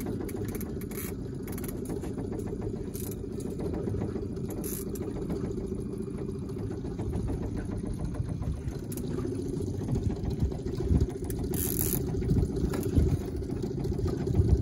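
A boat's outboard motor running steadily at idle while the boat trolls, a low even rumble, with a few brief knocks.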